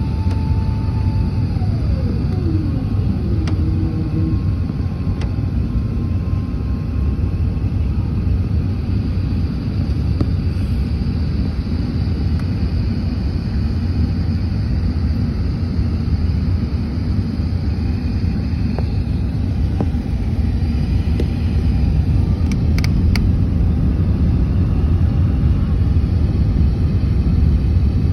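Airliner cabin noise on descent: a steady low rumble of the engines and airflow. A whine near the start drops in pitch and stops a few seconds in.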